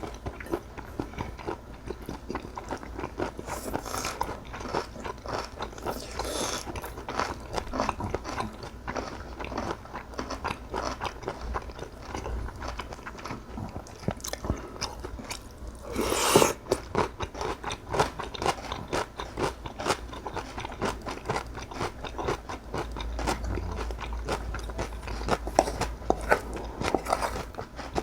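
Close-miked eating: steady chewing and crunching of food (cockle bibimbap and kimchi), with small clicks and scrapes. There is a louder burst about 16 seconds in.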